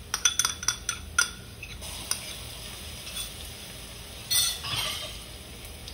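Garlic tipped from a small bowl into hot oil with onions in a pot: a quick run of clinks and taps of the bowl on the pot in the first second or so, then a steady sizzle of frying that swells briefly about four seconds in.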